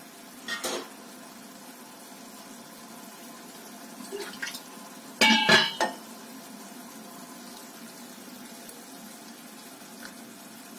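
Steel kitchen utensils clinking: a short clink about half a second in, small knocks near four seconds, then a louder ringing clatter of metal around five seconds in, over a steady low hum.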